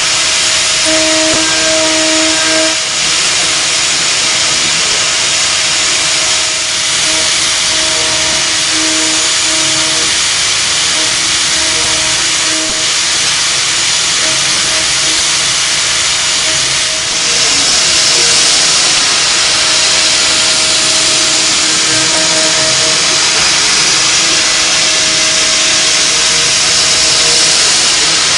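CNC milling machine cutting with an end mill: a loud, steady hissing cutting noise with a humming spindle tone that drops out and comes back. The hiss grows brighter about two-thirds of the way through.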